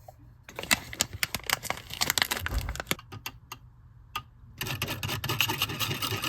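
A spoon clicking and scraping as it works matcha powder through a sifter: rapid light taps in two spells, the second, from about two-thirds in, busier and denser.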